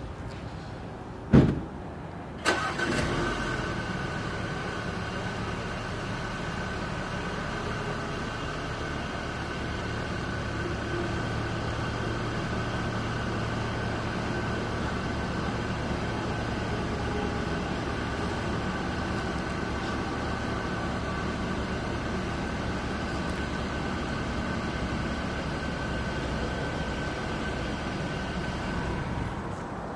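2018 Audi Q5's 2.0-litre turbocharged four-cylinder engine cold-starting: a sharp click about a second in, then the engine catches a second later with a brief flare and settles into a steady idle.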